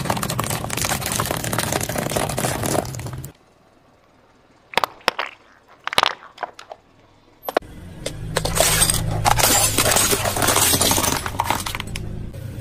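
A car tyre rolling over and crushing plastic drinking straws and candy-coated sweets, with the car's engine running low underneath. Dense crackling and crunching for the first three seconds, then a quiet stretch with a few sharp snaps, then loud crunching again from about halfway through.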